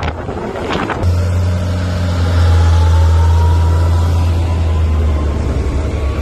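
Tractor's diesel engine running in a loud, steady deep drone as it passes close by hauling a big tipping trailer, with a faint whine slowly rising in pitch. Before the drone sets in, about a second in, there is noisy, wind-like rumble, and the sound cuts off abruptly near the end.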